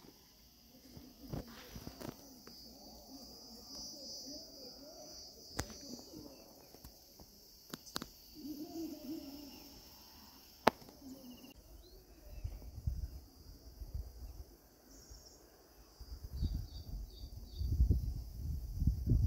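Insects chirring in a steady high buzz that weakens about halfway through, with a few sharp clicks. In the second half, low buffeting rumbles grow louder toward the end, with a few short bird chirps.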